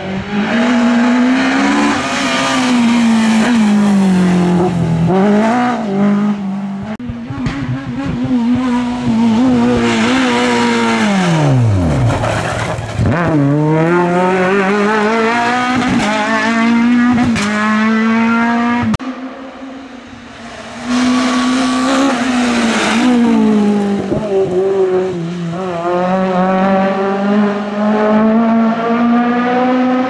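Naturally aspirated four-cylinder F2000 rally car engine at full throttle on a tarmac stage, held high in the revs with gear changes. Near the middle its pitch dives steeply and climbs back. It eases off about two-thirds through, then pulls hard again.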